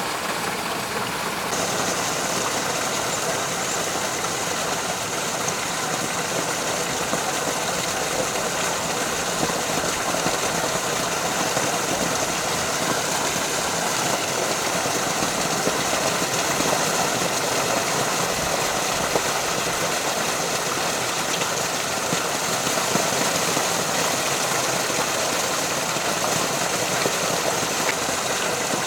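Water of a small waterfall rushing steadily, an even hiss with no break; the upper part of the hiss brightens about a second and a half in.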